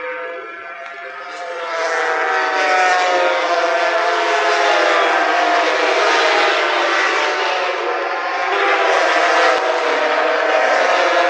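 A pack of racing motorcycles passing at high revs, several engines at once whose pitch rises and falls as they accelerate through the corners. The sound grows louder about a second and a half in and dips briefly near eight seconds.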